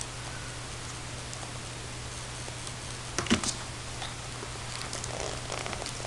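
Kittens' paws and claws tapping and scrabbling on a hard floor and plastic base as they play, with a short cluster of louder clicks about three seconds in.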